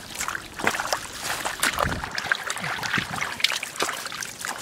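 Shallow muddy water splashing and trickling in small, irregular splashes as a person wades through it and gropes in it by hand.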